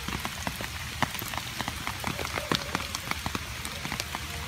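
Rain falling, many separate drops ticking irregularly over a light hiss.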